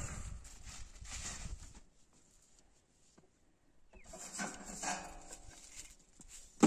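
A low rumbling noise fades out over the first two seconds. About four seconds in, a livestock animal gives one bleating call lasting about a second and a half.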